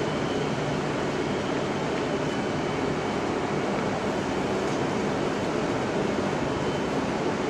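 Steady rumble and hum of a Southeastern class 395 electric multiple unit running slowly into a platform, with faint high tones above it.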